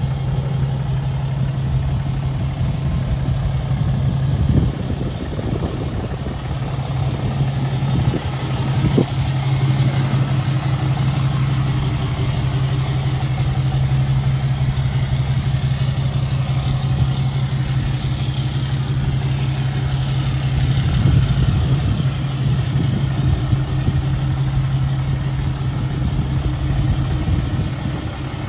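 2012 Ram 3500's Cummins 6.7-litre inline-six turbodiesel idling steadily, with a few brief swells in level.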